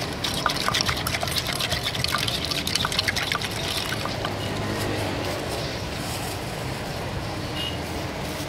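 Wooden pestle pounding chilies in a clay mortar with fish sauce for som tam: quick repeated wet knocks and squelches that stop about four seconds in, leaving a steady low background rumble.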